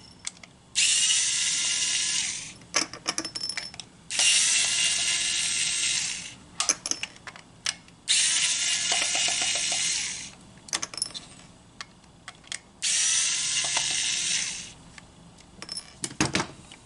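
Cordless rechargeable screwdriver backing the screws out of a plastic toy remote control's case, running in four bursts of about two seconds each. Small clicks and taps of handling the screws and the plastic case come between the runs.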